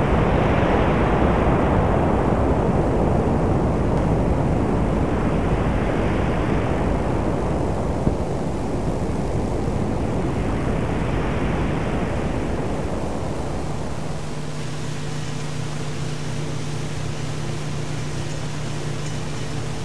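Dark film ambience: a rushing noise swells and fades in about three slow waves. After about thirteen seconds it settles into a lower, steady drone with a hum. A single click comes about eight seconds in.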